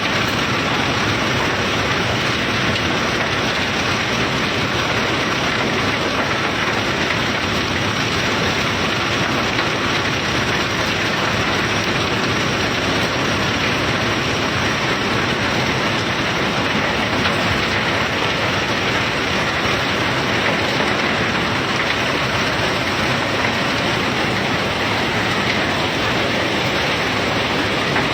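Self-unloading cargo ship discharging its cargo: a steady, even rushing of the unloading conveyor and the bulk cargo pouring off it, unbroken throughout.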